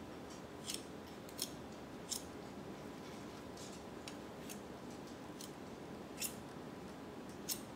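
Metal spoon and fork clicking and scraping against a plastic tub and a plate while scooping peanut butter: a scattering of short, light clicks at irregular intervals over quiet room tone.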